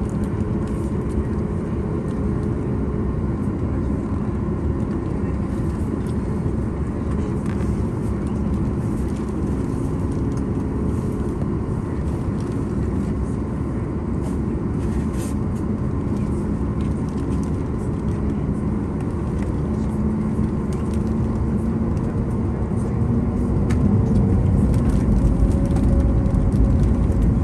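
Cabin noise of a Boeing 737 MAX 9 taxiing, heard from a seat over the wing: a steady hum from its CFM LEAP-1B engines and the cabin air, with a low rumble from the wheels. It grows louder near the end.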